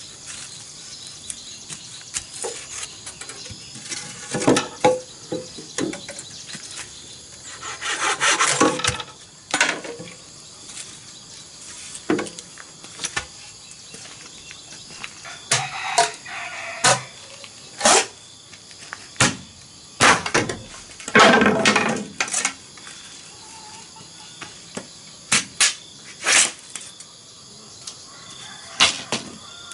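Hollow green bamboo poles being handled: scattered sharp wooden knocks as they are set down and struck against each other, with a few longer stretches of scraping and rubbing. A steady high insect chirring runs underneath.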